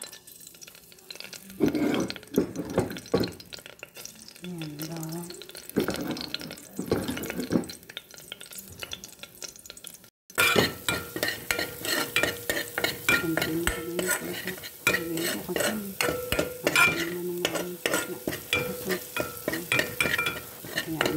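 Minced garlic frying in oil in an aluminium pot. In the first half it is dropped in and is faintly sizzling. After a break about halfway, a spatula stirs it, rapidly and repeatedly scraping the metal pot bottom over the sizzle.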